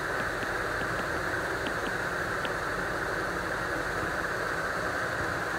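Steady background hiss of room noise, with a few faint light ticks in the first couple of seconds from a stylus tapping on a tablet screen while writing.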